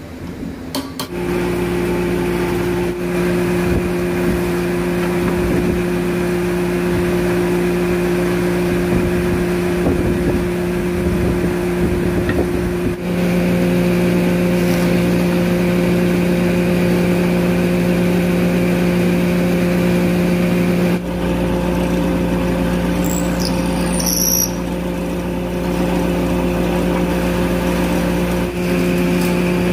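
Electric motor of a shop-built, chain-driven horizontal boring machine switching on about a second in and running with a steady hum as wooden pieces are pushed against the spinning drill bit. The hum changes tone a couple of times as the load shifts, and there is a brief high squeal near the end.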